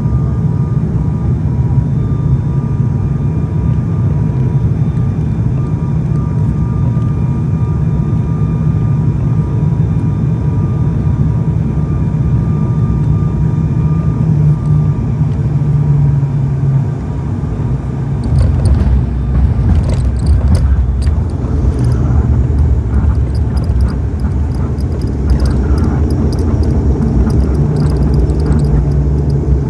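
ATR-72 twin-turboprop engines and propellers droning steadily in the cabin on final approach, with faint steady whining tones. About two-thirds of the way through, the sound dips briefly and then becomes a deeper, louder rumble with rattling as the aircraft rolls along the runway.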